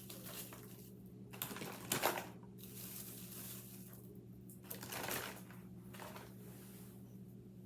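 Crinkling and rustling of Mylar bags and dry, crumbly freeze-dried chicken pieces being handled, in a few short bursts with pauses, over a steady low hum.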